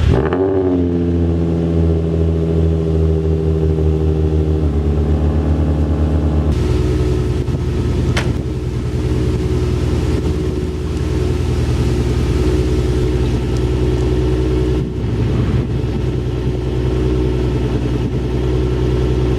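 Old Ford van's engine running. Its revs rise sharply right at the start and then sink slowly to a steady idle over the next few seconds. A little over six seconds in, the sound changes, and it runs on steadily after that.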